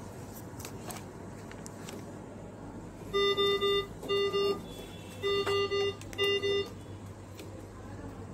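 GE CARESCAPE R860 ventilator sounding its alarm: a pitched beep pattern of three beeps then two, played twice, starting about three seconds in. This three-plus-two rhythm is the standard high-priority medical alarm signal.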